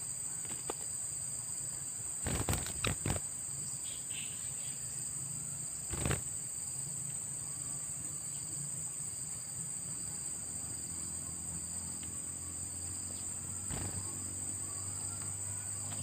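Steady, high-pitched drone of insects in the undergrowth, with a few short knocks about two and a half to three seconds in and another about six seconds in.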